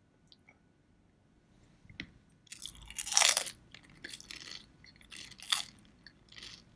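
Someone biting into a deep-fried spring roll, its crisp wrapper giving a loud crunch about three seconds in, followed by a few shorter crunches of chewing.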